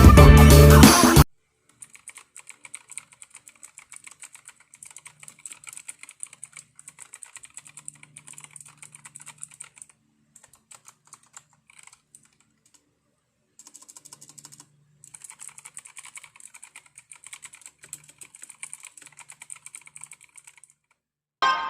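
Gigaware K28 mechanical keyboard with blue clicky switches being typed on: a steady run of key clicks with a short pause about halfway through. Music plays for the first second and comes back at the very end.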